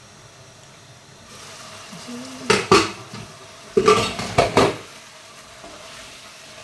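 Metal spatula clattering and scraping against a cooking pot in two short bouts about a second apart, with the pot's glass lid handled, while the chickpeas in tomato masala sizzle steadily in the oil underneath.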